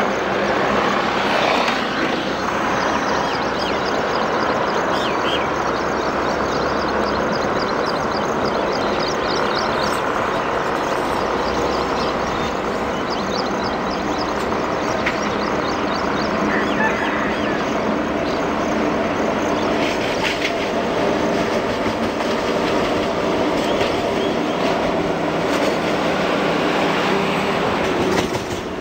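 WAP-7 electric locomotive hauling LHB passenger coaches, approaching round a curve with a steady running noise that holds level throughout.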